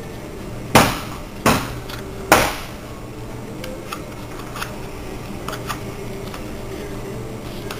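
A cardboard sticky trap being folded and handled on a tabletop. Three sharp knocks come in the first two and a half seconds, followed by light paper clicks and rustles over a steady low hum.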